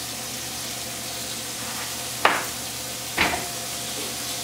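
Slices of leftover cooked filet steak sizzling steadily in an oiled frying pan as they are reheated, with two sharp knocks about two and three seconds in.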